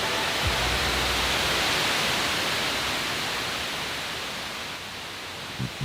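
Steady static hiss that slowly fades, with a low hum under it in the first half and a couple of short low thumps near the end.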